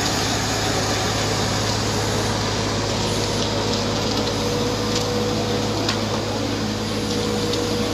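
Steady low mechanical hum under a constant hiss, like a motor running, with a few faint clicks and a thin faint tone that comes in about halfway through.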